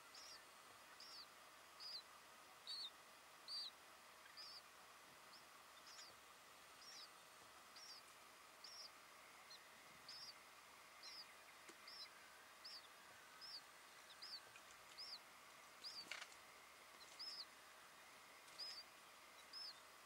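A bird's short, high chirps, faint and repeated a little faster than once a second. One soft knock comes late on.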